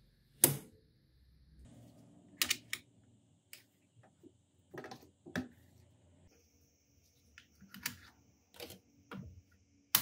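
Magnetic balls clicking together as they are snapped into place: about a dozen sharp, irregular clicks, the loudest about half a second in.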